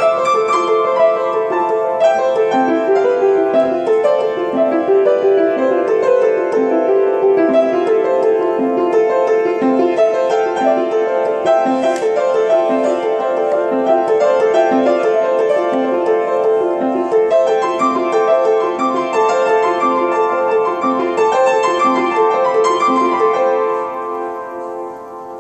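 Solo piano improvisation: chords and a melody over a steady pulse of one repeated note in the middle register, fading near the end.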